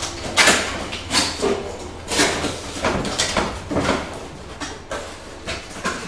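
Cardboard box being opened by hand: an irregular run of short scraping and rustling noises as the flaps and packing inside are pulled and pushed, about one or two a second.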